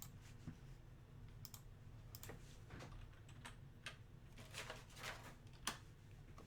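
Faint, irregular clicks and light taps with a few short rustles, over near silence.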